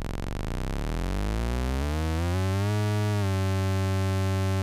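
After Later Audio bOSC triangle-core oscillator's pulse wave being swept in pitch with its coarse knob. The tone is at its lowest at the start, glides back up over about three seconds, then holds a steady low pitch.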